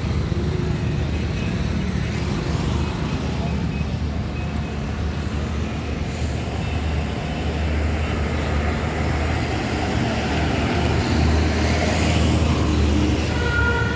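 A motor vehicle's engine running steadily with a low drone, getting louder and hissier for a couple of seconds near the end.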